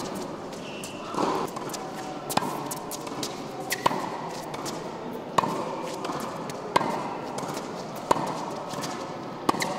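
Tennis ball struck with a racket in a steady baseline rally: sharp pops about every second and a half, about seven in all, as groundstrokes including two-handed backhands are hit.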